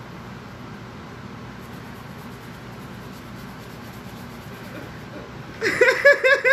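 A steady low background rumble, then from about five and a half seconds in a person breaks into high-pitched laughter.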